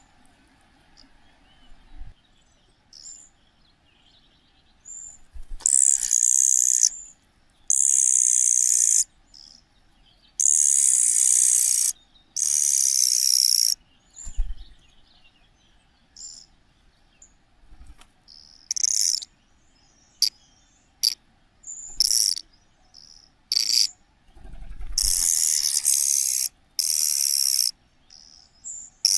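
Young cuckoo begging for food: high, hissing calls of about a second each, repeated many times with short gaps.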